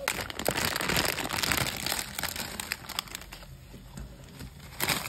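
Plastic instant-ramen seasoning sachets crinkling as they are shaken and emptied over the pan, loud for the first couple of seconds and again briefly near the end.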